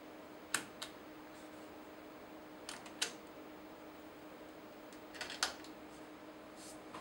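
Push-buttons on a railway signal box's route-setting panel clicking as they are pressed to set a train's route: sharp clicks, mostly in close pairs or quick clusters, a second or two apart, over a steady faint hum.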